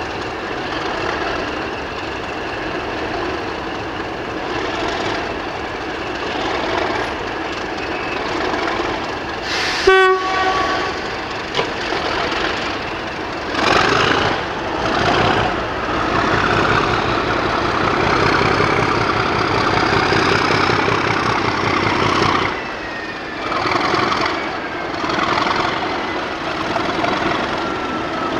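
Class 37/4 diesel locomotive's English Electric V12 engine idling, with a short horn blast about ten seconds in. A few seconds later the engine opens up under power, puffing exhaust, with a steady beat as it starts its train away, then eases back about twenty-two seconds in.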